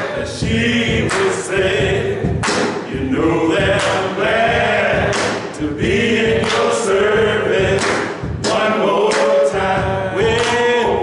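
Unaccompanied gospel singing, a man's lead voice with other voices joining, sung with handclaps about once a second.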